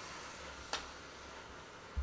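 A wooden spatula knocks once against the side of an aluminium pressure cooker of vegetables, a single light click a little under halfway through, over a faint steady hiss.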